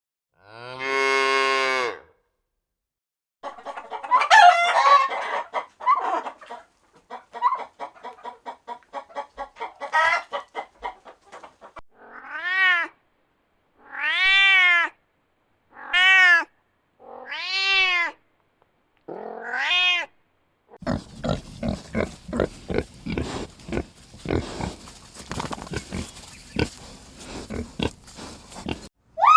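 A sequence of farm-animal calls. In the middle, a domestic cat meows five times, each meow rising and then falling in pitch. Near the end comes a long run of rapid short animal sounds.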